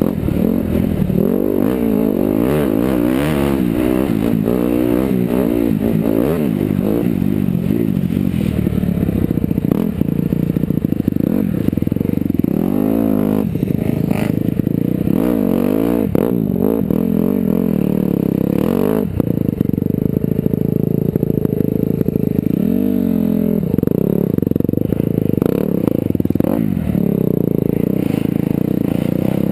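A Honda dirt bike's engine revving hard as it is ridden, its pitch rising and falling constantly with the throttle, with occasional knocks and rattles over the rough ground.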